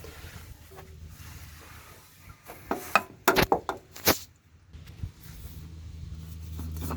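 An oil filter being worked up onto its mount under a 1967 Chevy G10 van: a few sharp clicks and knocks of metal handling around the middle, over a faint low steady rumble that grows louder near the end.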